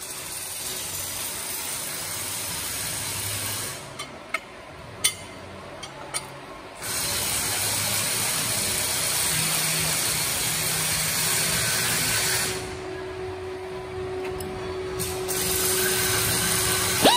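Hydraulic tube puller and the pump that powers it at work on heat exchanger tube stubs: a steady hiss in long stretches that stops and starts as each pull cycles. A few sharp metal clicks fall in a quieter stretch about four to six seconds in.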